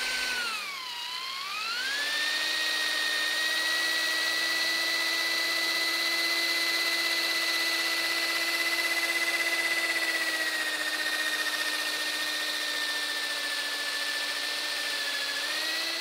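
Corded electric drill running steadily with an aluminium bicycle seatpost chucked in it while the post is sanded with 3000-grit sandpaper. The post is chucked straight, so it spins with little vibration. The motor's whine dips about a second in and climbs back, then holds steady, sagging slightly near the end before rising again.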